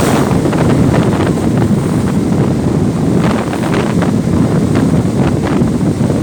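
Strong wind buffeting the microphone, a loud, continuous low rumble with irregular quick flutters through it.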